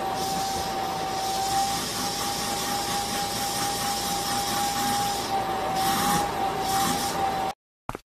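Vacuum cleaner running steadily, a constant high whine over a rushing hiss, its brush nozzle held against a cat's fur; it stops abruptly near the end.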